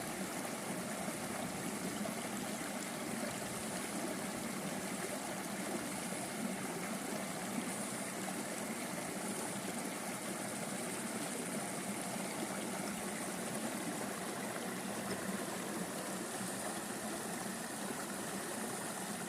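A shallow stream of water babbling and trickling steadily.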